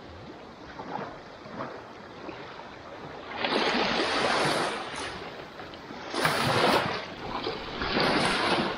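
Small waves washing onto a sandy beach, the hiss of surf swelling and fading with three louder washes in the second half.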